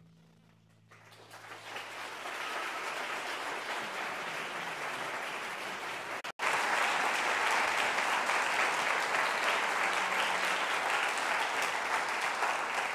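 Audience applauding after a string orchestra's last chord dies away. The clapping starts about a second in and builds; after a momentary break near the middle it goes on louder.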